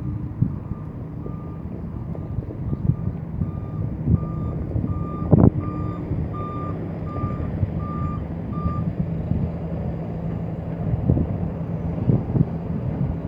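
Heavy diesel machinery running with a reversing alarm beeping about twice a second, stopping about nine seconds in, typical of a tipper truck backing up to the excavator to be loaded. A single sharp bang about five seconds in is the loudest sound.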